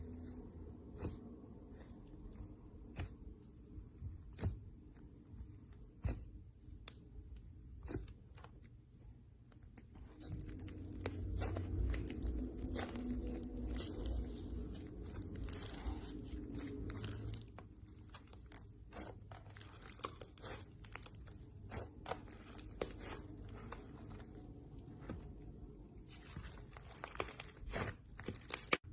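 Hands playing with slime, pressing and stretching it: irregular crackling clicks and pops with soft squishing.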